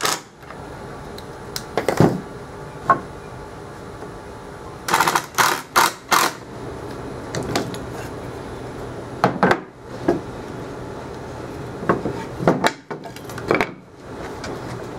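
Irregular knocks and clatter of pine boards and tools being handled and set down on a workbench, with a quick run of four sharper clicks about five seconds in.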